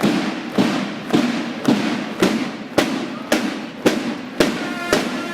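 Boots of a formation of troops striking the pavement in step: sharp, evenly spaced strikes a little under two a second, a marching cadence.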